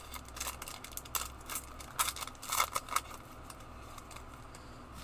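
Foil wrapper of a Pokémon trading-card booster pack being torn open and crinkled, a string of sharp crackles over the first three seconds, then quieter as the cards are slid out.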